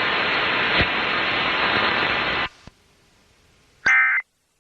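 Emergency Alert System test audio: a steady static hiss that cuts off suddenly about two and a half seconds in, then near silence and one short burst of electronic data tones near the end. The burst is the first of the EAS end-of-message (EOM) data bursts that close the alert.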